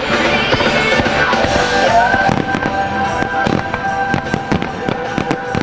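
Fireworks display going off: a rapid run of bangs and crackles that thickens after about two seconds, heard over music with long held notes.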